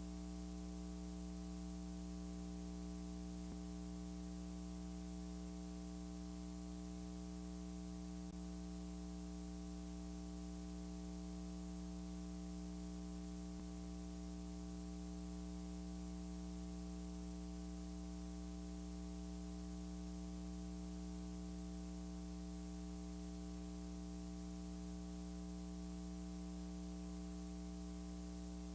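Steady electrical hum with a layer of hiss, unchanging, with no other sound standing out.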